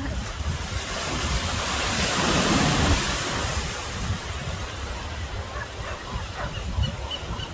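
Ocean surf breaking and washing over rocks along a sandy beach, swelling loudest about two seconds in, with wind rumbling on the microphone.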